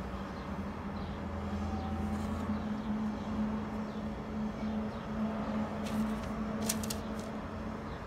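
Steady low hum over background noise, with a few light crisp ticks about six to seven seconds in as thin raw potato slices are laid on parchment paper on a baking tray.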